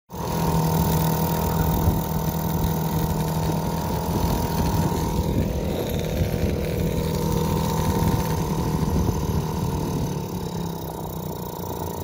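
Nissan 3.5 hp two-stroke outboard motor running at a steady speed after its rebuild. It cuts in abruptly and gets a little quieter near the end.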